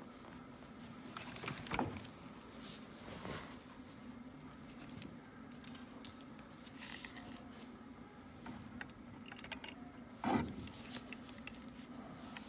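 A few faint knocks and clicks, as of parts or tools being handled, over a steady low hum; the sharpest knock comes near the end.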